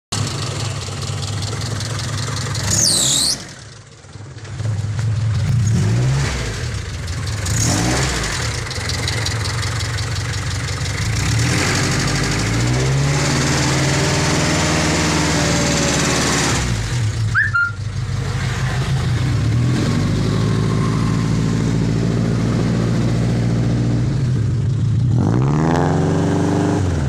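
Daihatsu Taruna Oxxy's four-cylinder engine idling through an aftermarket full-set 4-into-1 header exhaust, blipped several times so the note rises and falls back to idle. The sound briefly drops away about four seconds in.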